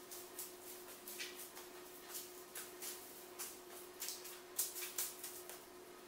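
Loose strands of unwound VHS videotape rustling and crackling irregularly as they are handled and brushed, over a steady low hum.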